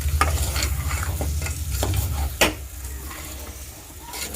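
Goat trotters coated in chili powder and salt being stirred and scraped around a hot pot, frying with a sizzle before the water goes in. The stirring utensil knocks sharply against the pot about two and a half seconds in.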